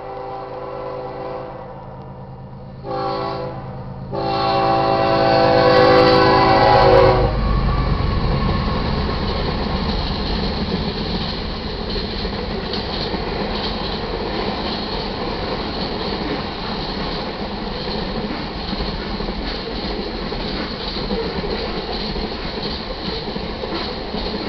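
GE ES44C4 diesel locomotive's air horn sounding for a grade crossing: the end of a long blast, a short blast about three seconds in, then a long, loud blast. The locomotive then passes and a freight train's cars roll by, their wheels making a steady rumble on the rails.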